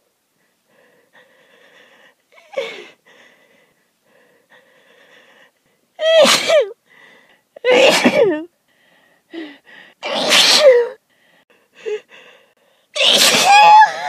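A person with a head cold sneezing four times, each sneeze loud and voiced and about two to three seconds apart, with quick gasping breaths in between. The sneezes come after a few seconds of faint breathing, as the urge to sneeze could not be held back.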